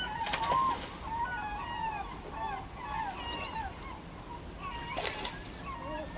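Many short bird calls overlapping and chattering over the steady rush of a waterfall.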